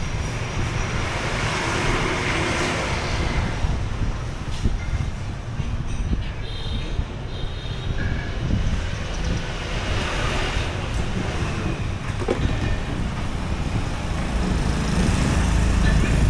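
Street traffic ambience with vehicles passing, swelling about two seconds in and again around ten seconds, over a steady low rumble of wind on the microphone that grows heavier near the end.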